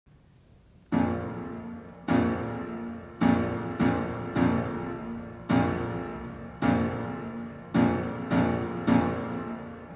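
Background piano music: chords struck roughly once a second, each left to ring and fade away, beginning about a second in.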